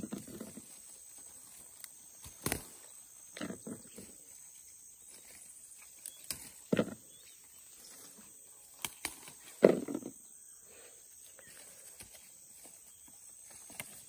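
Pepper-plant leaves and stems rustling and knocking as small aromatic peppers (pimenta de cheiro) are picked by hand, in about five short separate bursts with a few sharp clicks between, the loudest near the end.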